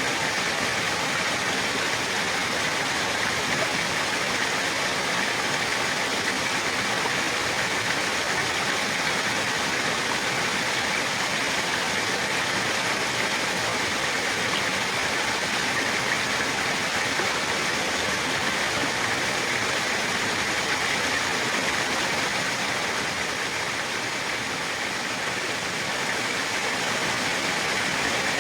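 Running water rushing steadily and evenly, a stream or fall of water with its hiss strongest in the upper-middle range.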